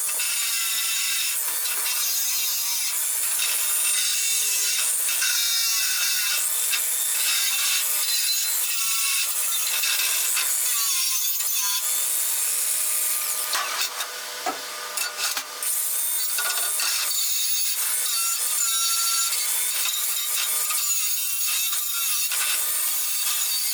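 Angle grinder grinding down old welds on a steel grate, cutting them flush and bevelling the joints: a steady, high-pitched grinding noise that eases for a moment about fourteen seconds in.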